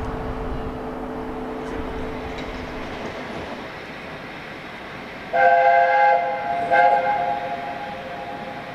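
LNER A4 Pacific 60009 Union of South Africa's chime whistle: two blasts of a steady chord, the first about five seconds in and the second a second and a half later, given as the locomotive is about to depart.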